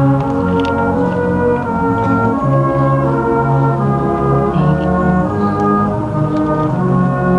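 Band music: a slow tune played in full, sustained chords that change about every half second to a second.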